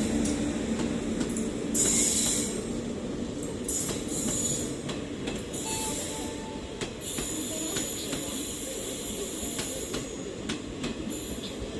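Passenger train running on the rails: a steady rumble with scattered sharp clicks from the wheels over rail joints and short high-pitched wheel squeals. The sound slowly gets quieter.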